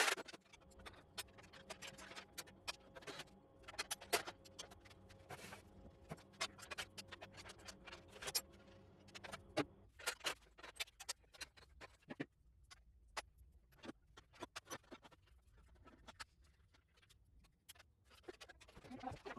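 Irregular sharp clicks and clinks of hand tools on metal parts, with a steady low hum that stops about halfway through.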